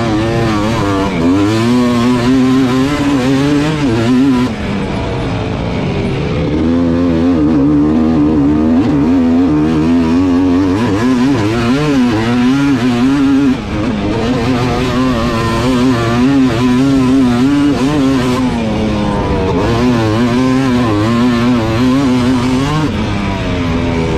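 Race ATV engine running hard, its pitch rising and falling as the throttle is worked over the bumps of a dirt track, with brief throttle cuts about four and a half seconds in and again just past halfway.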